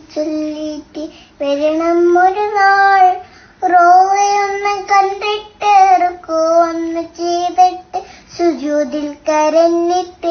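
A little girl singing a song in a high child's voice, phrase after phrase with short breaks for breath.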